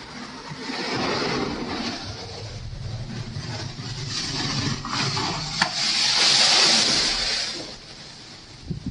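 Strong wind blowing in gusts, swelling hardest about six to seven seconds in, with a brief sharp snap a little past halfway.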